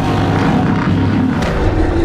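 Godzilla Filius roar sound effect: a loud, deep, rough rumbling cry with a held low drone under it.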